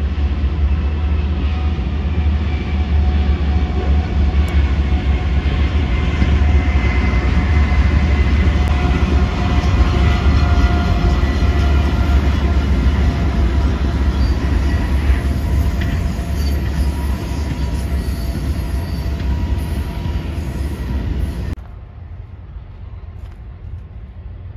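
BNSF freight train's lead GE diesel locomotives passing close by, their engines making a loud, steady low rumble with faint high steel wheel squeal over it. The sound drops off abruptly about 21 seconds in to a much quieter hum.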